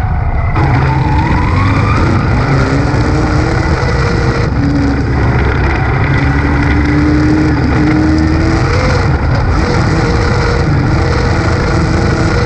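Race car engine running loud and steady, its pitch drifting slightly up and down, with no revs to speak of.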